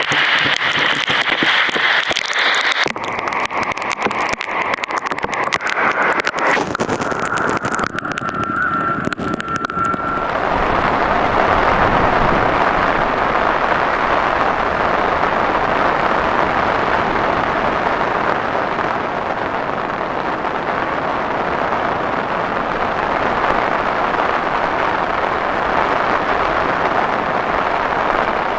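Heavy rain: dense crackling of drops for about the first ten seconds, then a steady, even rush of downpour that cuts off suddenly at the end.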